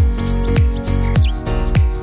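Background music with a steady kick-drum beat, about three beats every two seconds, over held chords.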